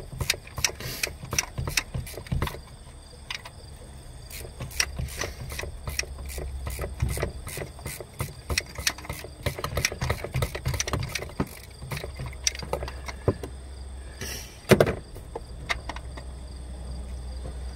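Socket ratchet clicking in quick, uneven runs as the bolts holding a serpentine belt tensioner bracket are backed out, with one louder metal clunk about fifteen seconds in. Crickets trill steadily behind it.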